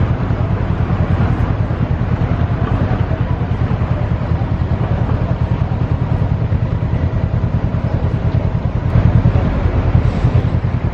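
Harbour tugboat diesel engines running with a steady low rumble and a rapid, even throb, briefly louder about nine seconds in.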